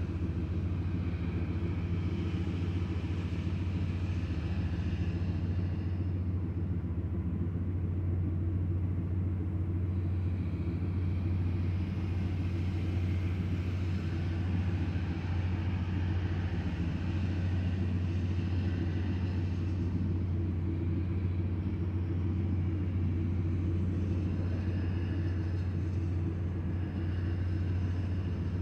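A parked vehicle's engine idling, a steady low hum heard from inside the cabin, with a light hiss of rain on the roof and windshield.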